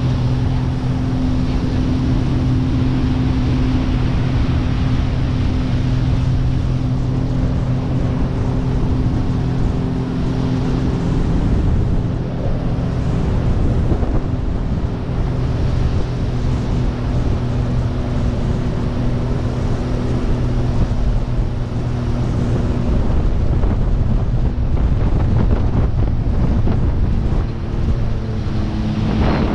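Jet ski engine running at a steady cruising speed while towing, with wind buffeting the microphone and the rush of the wake. The engine note dips briefly about twelve seconds in and again near the end.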